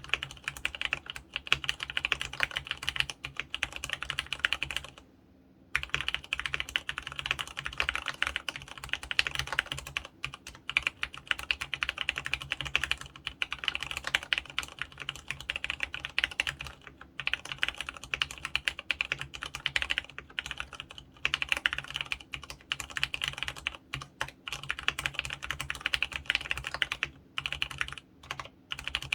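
Fast, continuous typing on an mStone Groove F mechanical keyboard with fully lubricated Clarion brown tactile switches (35 g), keystrokes clattering densely, with a short pause about five seconds in.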